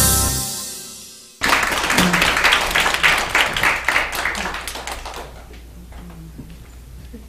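Instrumental music fading out, then, after a sudden cut about a second and a half in, audience applause that dies away after about four seconds into room tone.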